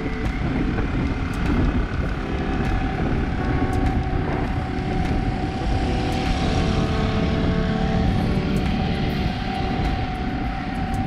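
Wind rushing over the microphone and road noise from a bicycle riding along a street, with a few steady tones over it.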